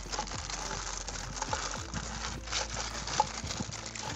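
Clear plastic zip-lock bag crinkling irregularly as it is handled.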